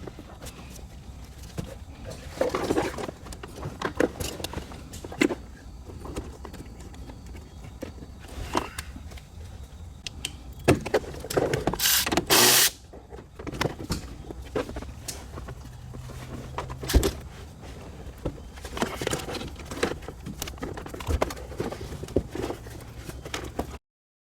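Handling noises from work on a vehicle's wiring and trim: scattered clicks, knocks and rustles over a steady low hum, with a brief loud rasping noise about halfway through.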